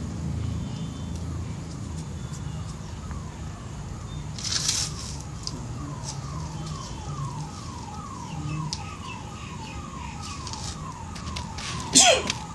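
An electronic alarm sounds a repeated falling tone, about two or three a second, starting a few seconds in, over a steady low rumble. A short, loud noise comes near the end.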